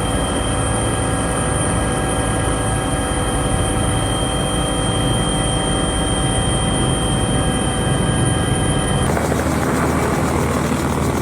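Helicopter running steadily, a constant whine over engine noise. About nine seconds in the sound cuts abruptly to a rumblier stretch with a fast regular beat of rotor blades.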